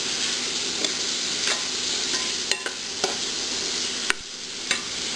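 Boiled kidney beans sizzling in oil and spice masala in a metal kadai while a metal spatula stirs them, its edge clicking against the pan about six times.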